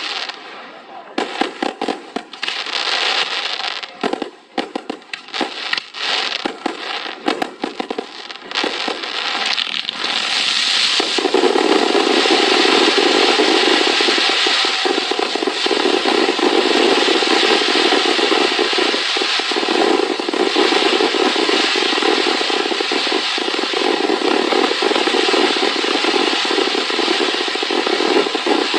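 Fireworks display: a rapid string of separate bangs and crackles for about ten seconds. Then, about eleven seconds in, it turns into a loud, dense, unbroken crackling barrage that carries on.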